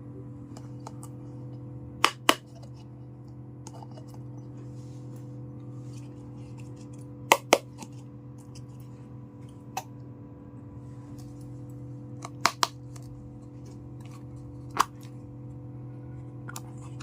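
Sharp clicks of small hard miniature kitchen-set pieces being handled and set down, mostly in quick pairs every few seconds, over a steady low hum.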